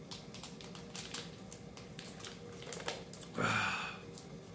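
Thin plastic water bottle crinkling and crackling as it is drunk from and handled: a run of small sharp clicks. About three and a half seconds in comes a short, louder burst of voice.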